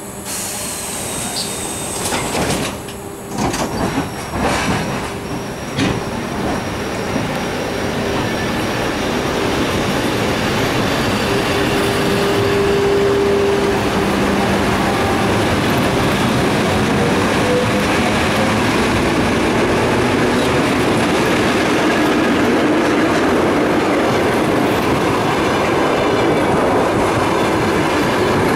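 Express passenger train hauled by an EP2K electric locomotive passing close by. The steady rumble of coach wheels on the rails, with clickety-clack over the rail joints, builds up over the first ten seconds or so and then holds loud. Scattered clicks and a steady hum come early, before the train is fully alongside.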